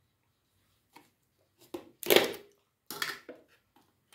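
Plastic sour cream tub being handled and opened: a few short plastic clicks and crackles, the loudest about halfway through.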